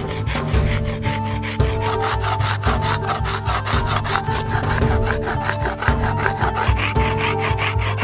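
A hand-held stone being ground back and forth on a wet flat stone slab, making a gritty scraping with quick, even strokes of about four a second.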